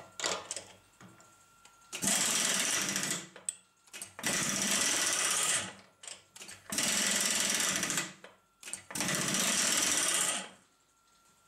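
Pneumatic power drawbar of a milling machine (a PD150 Air Power Driver, an air impact wrench on top of the spindle) hammering in four rapid-rattle bursts of about a second and a half each. The bursts turn the drawbar bolt loose or tight to release or clamp the tool.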